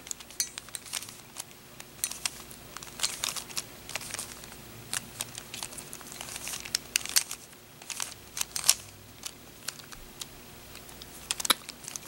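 Plastic layers of a 3x3 Rubik's Cube being turned by hand, an irregular run of quick dry clicks and clacks that come in short clusters of turns.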